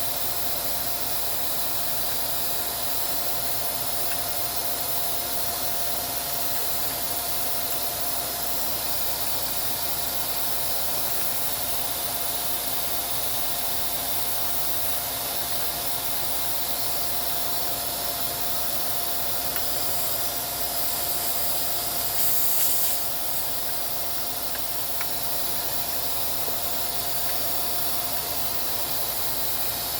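Steady airflow from a small electric motor, an even hiss with a faint steady whine, briefly louder about twenty seconds in.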